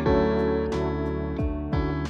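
Background music: steady, sustained guitar and keyboard notes with a regular pulse.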